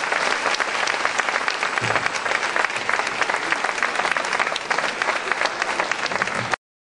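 Crowd applauding, many hands clapping densely and steadily; it cuts off suddenly near the end.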